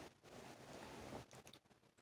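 Near silence: room tone, with a faint soft rustle in the first second or so.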